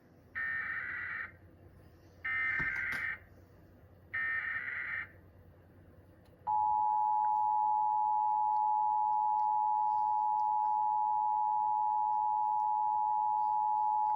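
Emergency Alert System signal: three short bursts of the SAME digital header, a warbling data chirp about a second long each and about a second apart, then the two-tone attention signal (853 and 960 Hz together) sounding steadily for about eight seconds, running to the end.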